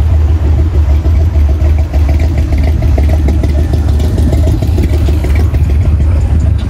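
Car engines running in slow street traffic: a steady, heavy low rumble with a faint pulsing engine hum above it.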